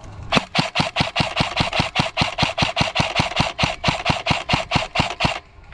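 Airsoft electric rifle (Krytac AEG) firing a long string of rapid semi-automatic shots, about five a second, for about five seconds, then stopping suddenly near the end.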